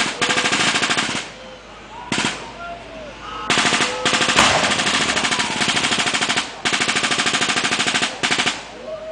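Machine-gun fire in several long bursts of rapid shots, with brief pauses between bursts, as in an air-raid re-enactment.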